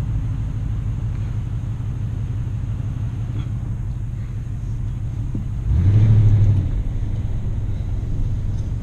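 Car engine running at low speed with a steady low rumble, heard from inside the cabin; about six seconds in it swells louder for about a second.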